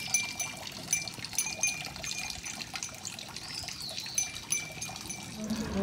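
Water trickling steadily from a bamboo spout into a stone shrine purification basin, with short high chirps over it. Guitar music comes in near the end.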